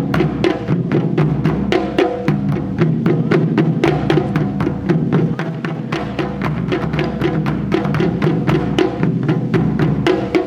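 Japanese taiko drum ensemble playing a fast, dense rhythm of rapid strikes, with sharp wooden clicks mixed in among the deep drum hits.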